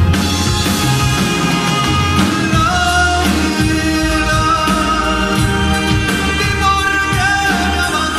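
A band playing with a singer: a steady bass and drum beat under a sung melody of long held notes that slide between pitches.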